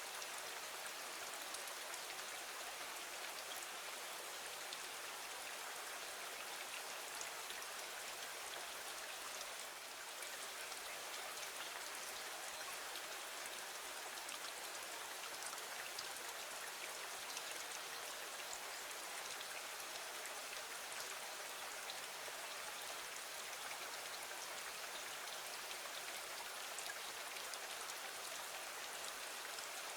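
Steady rain falling against a window: an even hiss with fine, scattered drop ticks and no change in strength.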